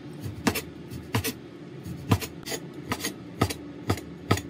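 Chinese cleaver slicing raw beef on a cutting board, the blade knocking sharply on the board about every half second, unevenly spaced.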